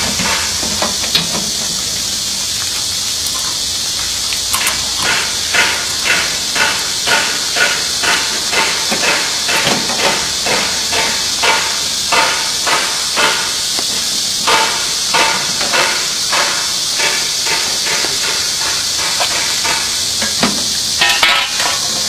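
A run of regular metallic taps or clicks, about two a second, from hand tools fitting the infeed roll operating handle onto a wood chipper. They start a few seconds in and stop near the end, over a steady loud hiss.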